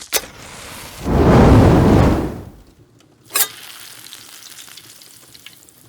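Hot oil sizzling: a loud surge of frying about a second in that dies away after a second and a half, with sharp clicks before and after it, then settles to a low steady sizzle.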